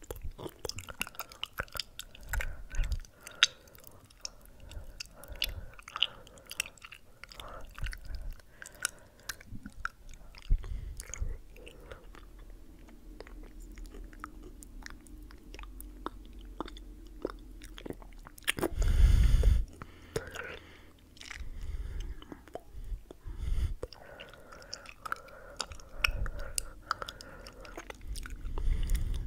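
Close-miked ASMR mouth sounds: a dense run of irregular mouth clicks, like chewing. About two-thirds of the way in comes one louder, deeper sound about a second long.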